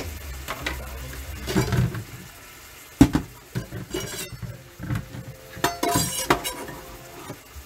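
Pots, pans and metal utensils clanking and clinking in a series of knocks, the sharpest about three seconds in and a short metallic ring around six seconds.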